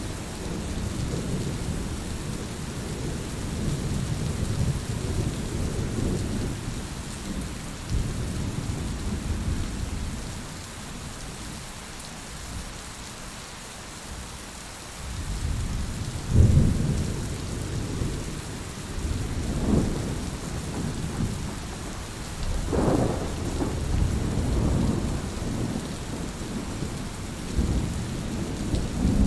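Steady rain falling with rolling thunder rumbling underneath. The rumbles ease off for a few seconds, then a louder thunderclap comes a little past halfway, followed by further rumbles.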